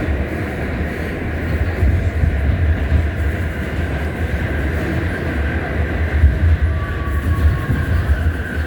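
R68 subway car running at speed: a steady heavy rumble of wheels on rail, with a faint whine from the traction motors drifting slightly in pitch.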